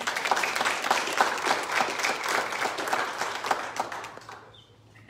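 Church congregation applauding after a sung special, starting suddenly and dying away about four seconds in.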